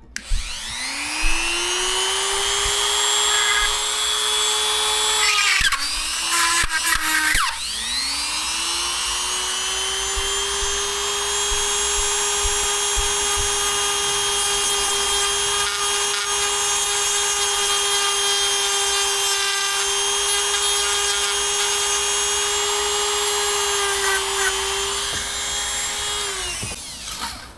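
Electric drill widening a hole. It spins up and runs steadily for about five seconds, stops, is blipped briefly a few times, then spins up again for a long steady run that winds down near the end.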